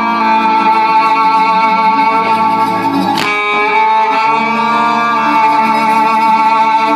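Music with long held notes and slowly changing chords, and a single sharp crack about three seconds in.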